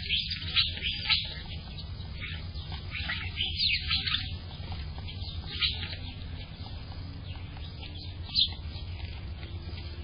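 Small birds chirping: quick short high notes, thick in the first half and sparser later, with one louder chirp near the end. A steady low rumble runs under them.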